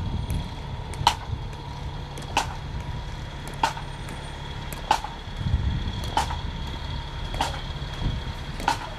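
Sharp single drum taps from a marching pipe and drum band, one about every second and a quarter, keeping a slow marching cadence over a low outdoor rumble.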